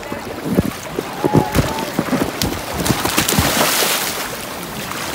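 Water splashing and sloshing around a large inflatable vinyl float as someone climbs aboard, with several dull thumps against the float. A louder rush of splashing comes about three and a half seconds in.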